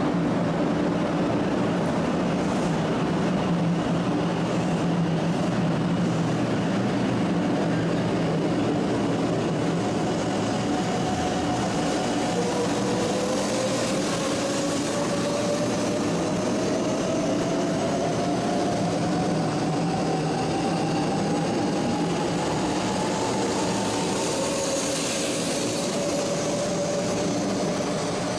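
A JR West 500 Series Shinkansen pulling out of a station and accelerating past along the platform: a steady rumble and hiss of the train rolling by, with an electric motor whine that rises slowly in pitch from about the middle on as the train picks up speed.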